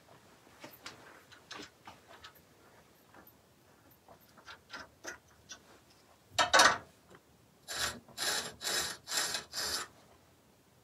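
Steel turning tool's inked bevel scraped against the grinder's stone wheel, turned by hand with the motor off, in about five short strokes roughly two a second near the end: a black ink check of the bevel angle. A sharp knock comes just before, after faint ticks of handling the jig.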